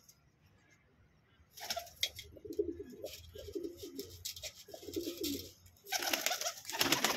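Domestic pigeons cooing in repeated low bursts, starting about a second and a half in, then a loud flurry of wing flapping near the end.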